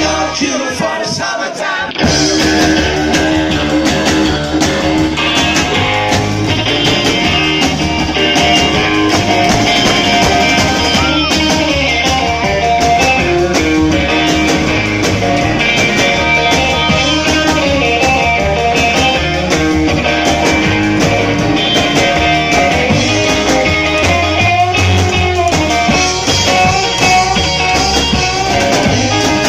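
Live rock and roll from a guitar-and-drums duo: electric guitar through an amp and a drum kit, with singing. The band drops back for a moment and comes in again at full volume about two seconds in.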